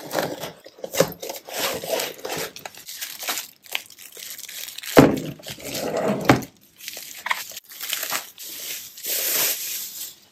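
Packaging being torn open and crinkled by hand: irregular rustling and tearing, with louder rips about halfway through.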